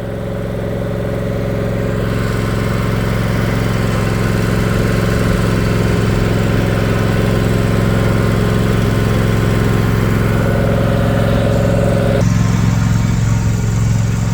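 Riding lawn mower engine running steadily under way, a constant low hum that grows louder over the first couple of seconds and shifts slightly in tone about twelve seconds in.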